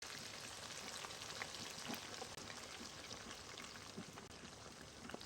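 Faint steady hiss with scattered small pops and ticks, typical of food cooking on the stove.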